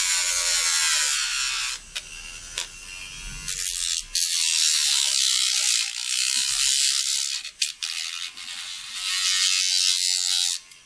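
Small hobby electric jigsaw running and cutting into a piece of wood, in several spells of a few seconds with short pauses between them.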